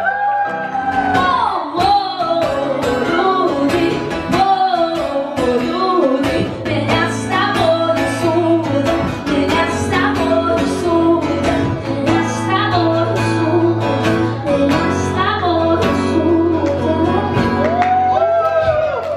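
Woman singing a song into a microphone, accompanied by strummed acoustic guitar, with a steady bass line joining about six seconds in.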